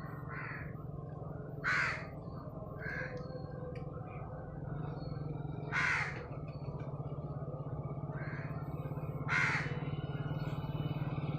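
House crows cawing: three loud caws, each about half a second long and roughly four seconds apart, with fainter calls in between. A steady low hum runs underneath.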